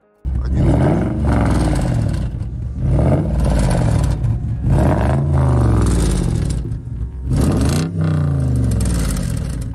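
Lexus LS430's V8 engine revved four times, its pitch rising and falling each time, with a knocking rattle from the exhaust: the aftermarket RSA muffler cans have started knocking.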